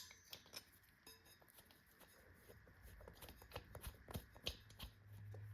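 Near silence with faint scattered small clicks and ticks of the valve stem nut being worked loose on the wheel, and a low steady hum coming in near the end.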